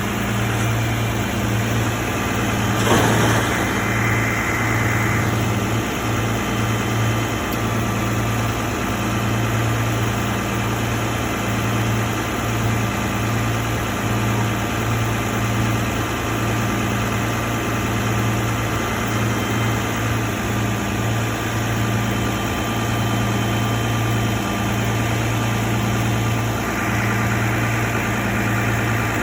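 Car engine idling steadily, with a brief sharp knock about three seconds in.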